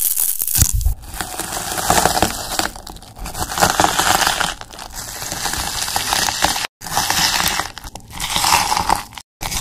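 Pomegranate arils crushed under a stainless-steel muddler in a glass jar of juice, a wet crunching in repeated pressing strokes. The sound cuts out abruptly twice.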